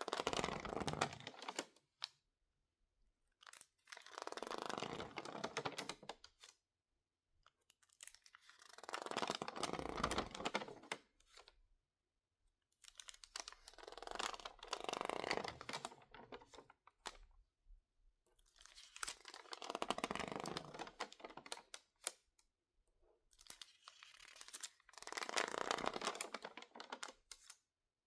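Stiff, water-damaged magazine pages crinkling as they are handled and squeezed by hand: about six crackly bursts of two to three seconds each, with short pauses between them.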